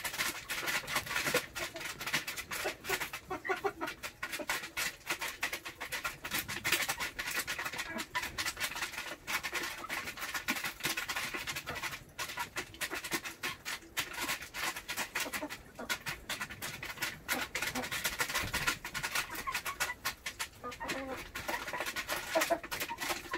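A flock of chickens and Muscovy ducks feeding at a plastic feeder, with many quick, irregular pecking taps and occasional soft clucks.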